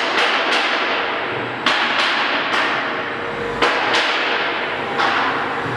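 Wooden cut-out pieces of a CNC-routed panel knocking and clattering as they are handled on the machine bed: a series of about eight sharp knocks, each trailing off in a short hiss.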